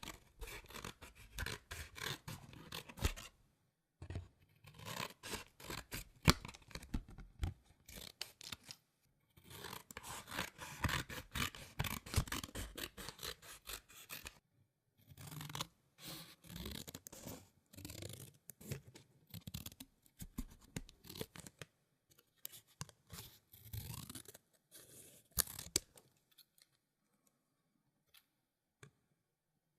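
Scissors cutting paper: runs of rapid snips and the rasp of blades through the sheet, in several bursts with short pauses between them, thinning to a few scattered snips near the end.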